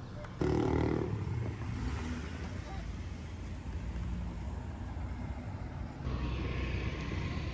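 Town street ambience with car traffic: engines and tyres passing. A louder burst comes about half a second in and fades over the next second.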